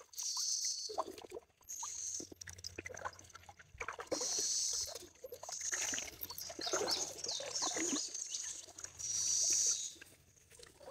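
Shallow river water splashing and sloshing in repeated short bursts as someone wades through it.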